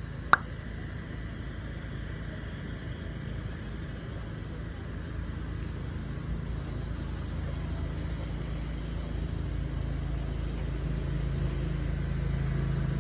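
Low, steady rumble of road traffic, with a low engine tone growing louder toward the end. There is one sharp click about a third of a second in.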